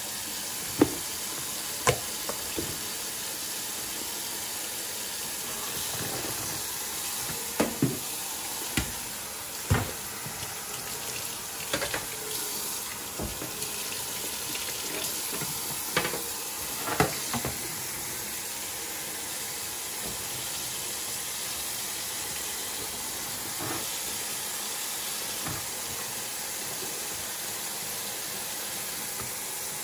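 Kitchen tap running steadily into a stainless steel sink as catfish fillets are rinsed under it. About ten sharp knocks and clatters of a knife and cutting board against the sink come in the first half or so.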